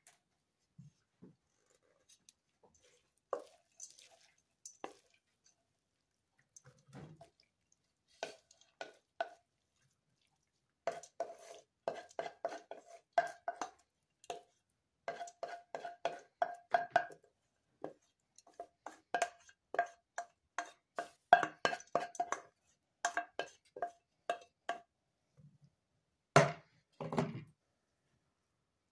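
A metal utensil clinking and scraping against metal cookware in quick runs of short ringing knocks, with pauses between the runs. The two heaviest knocks come near the end.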